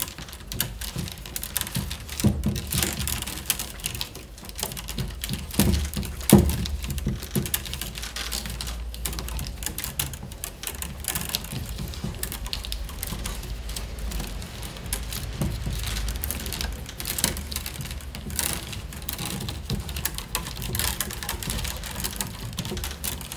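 Peeled willow wicker rods being woven by hand: a dense, irregular clicking, tapping and rustling as the rods are pushed and knocked against each other and the stakes. There is a louder knock about six seconds in.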